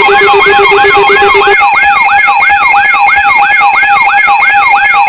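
Electronic siren yelping about three times a second, each sweep rising and falling in pitch, layered over steady pulsing alarm tones. A lower pulsing tone drops out about a second and a half in.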